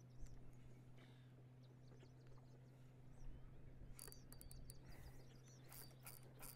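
Near silence: a faint steady low hum, and from about four seconds in a quick run of faint high clicks and chirps.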